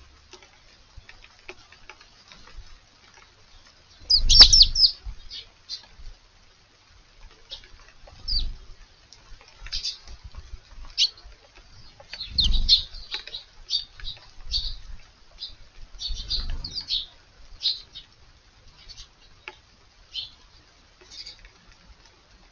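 Eurasian tree sparrows chirping in short, scattered bursts. The chirps are loudest about four seconds in and again in clusters later on, with a few low rumbles alongside the loudest bursts.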